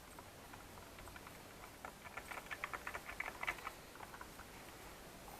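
Faint, quick, light clicks and taps from handling the steering wheel's small plastic and metal parts, mostly in a run of rapid clicks from about two seconds in.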